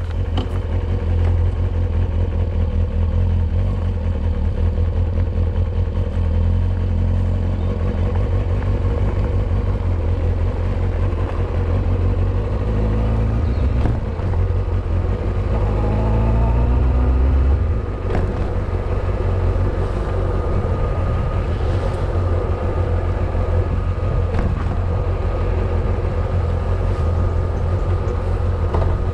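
Kawasaki sports motorcycle's engine running as the bike rides off at low speed. About halfway through, the engine note climbs in pitch for a few seconds, then drops back.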